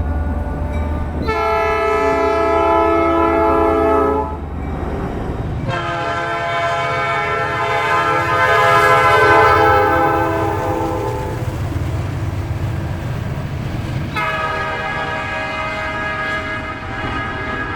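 Nathan Airchime P5 five-chime locomotive air horn sounding three blasts: one of about three seconds, a longer one of about six seconds, then a third that starts about fourteen seconds in and is still sounding at the end. A low rumble runs underneath.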